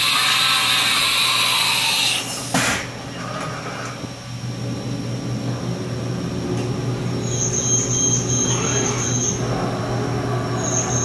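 1998 Haas VF-2 CNC vertical mill cycling through a tool change and axis moves, over a steady low machine hum. A loud hiss fills the first two seconds, a sharp clack comes a little later, then a high whine sets in from about seven seconds, breaks off briefly and resumes near the end.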